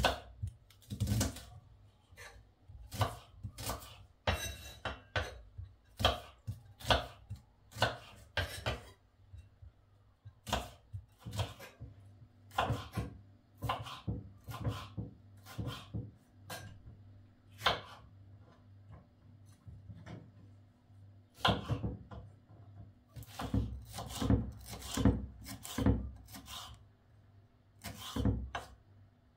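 Kitchen knife slicing shallots and red bell pepper on a wooden cutting board: irregular sharp knocks of the blade meeting the board, one or two a second, with a short pause about two-thirds of the way through.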